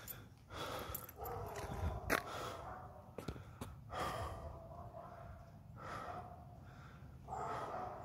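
A person breathing heavily close to the microphone, in four or five long breaths with pauses between, and a few sharp clicks.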